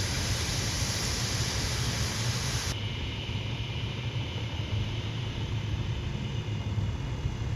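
Heavy farm vehicle diesel engine running steadily as a low rumble. A high hiss over it stops abruptly about three seconds in.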